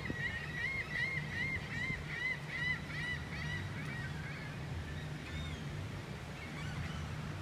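Gull calling a fast run of short rising-and-falling notes, about three a second, that fades out about halfway through. A low steady hum runs underneath.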